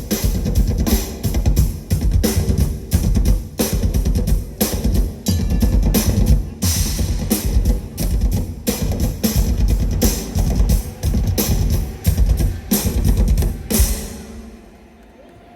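Music with a steady drum-kit beat, bass drum prominent, that fades away near the end.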